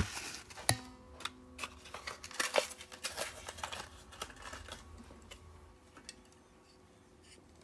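Hot Wheels die-cast toy car and its plastic blister packaging being handled: a run of irregular clicks, taps and light crinkles, with a short ringing ping under a second in, thinning out to quiet in the last couple of seconds.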